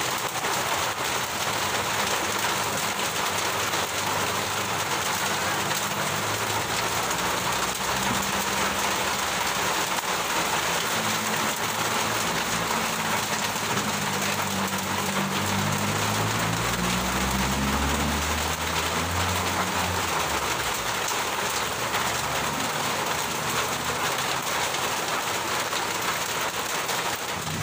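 Heavy rain pouring steadily on the ground, logs and trees. A low engine drone comes in under it, rises in pitch and fades out about two-thirds of the way through.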